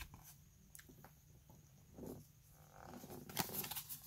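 Faint rustling and light clicks of Pokémon trading cards being handled and flicked through by hand, with a few sharper card snaps in the second half, over a low steady hum.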